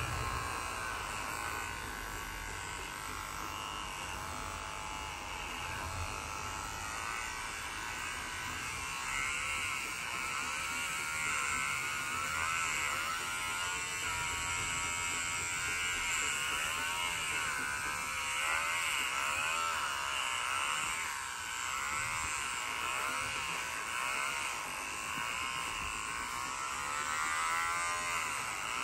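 Small electric pet trimmer buzzing steadily while it clips the fur between a dog's paw pads. Its pitch dips and recovers again and again as the blade is pressed into the hair.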